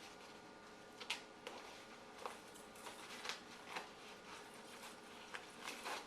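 Small gear being handled and rummaged through: a string of faint, irregular clicks, taps and rustles.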